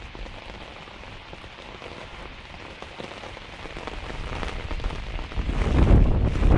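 Steady rain falling on wet concrete, an even hiss of many small drop hits. About five and a half seconds in, a low wind rumble on the microphone builds and becomes the loudest sound.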